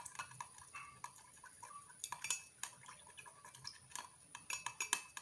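A spoon stirring lime juice and sweet soy sauce in a glass, clinking faintly and irregularly against the glass in small clusters of clicks.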